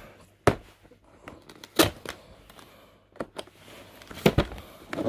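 Cardboard keyboard box being handled and turned over, giving several sharp knocks and taps, the loudest about half a second in, near two seconds and just past four seconds.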